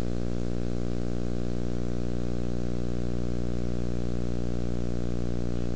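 Steady electrical hum with a buzzy stack of low tones and a constant background hiss, unchanging throughout.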